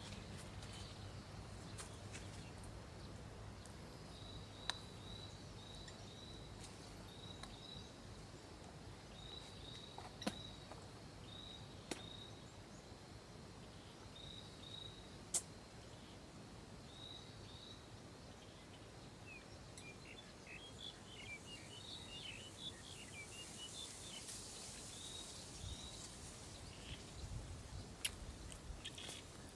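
Quiet birdsong: a bird repeats a short, high chirp, mostly in pairs, every second or two. Other birds twitter in a brief flurry about two-thirds of the way through, and there are a few isolated sharp clicks.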